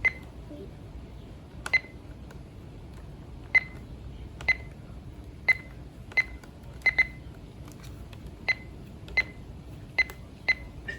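A weather radio's short button-press beeps, about a dozen single beeps at uneven intervals as its keys are pressed over and over while trying to change its channel.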